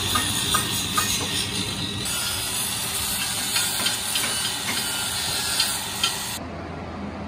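Electric angle grinder with an abrasive disc working over a welded steel wheel rim: a steady harsh hiss of the disc on metal, with a few light clicks. The hiss cuts off near the end.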